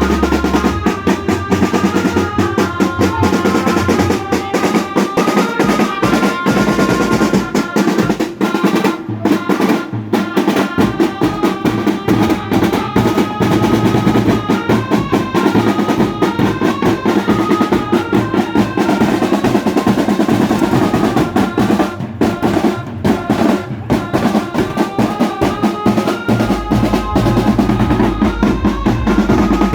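Loud, drum-heavy music with fast snare rolls and a stepping melody line, played through a DJ speaker rig of JBL bass speakers and Ahuja top speakers as a sound test. The deep bass is heavy at the start, drops back for most of the stretch, and returns strongly near the end.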